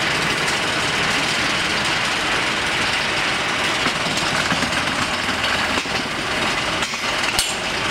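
Steady mechanical running noise of a concrete-block line's motor-driven chain pallet conveyor and pallet lifter, as a steel pallet is carried into the lifter.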